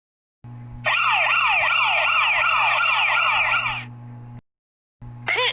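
Electronic siren sound effect: a rapid falling wail repeated about three times a second for some three seconds, over a steady low hum.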